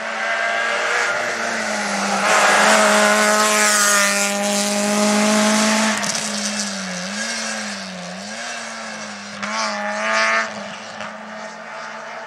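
Rally car engine at full throttle as the car comes through a bend and passes, its note climbing and dropping through the gears, loudest in the middle. A second short burst of revs comes about ten seconds in.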